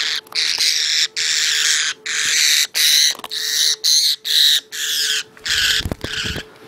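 Pet budgerigars squawking: a rapid run of about a dozen harsh, loud screeches, each under a second long, with short gaps between them.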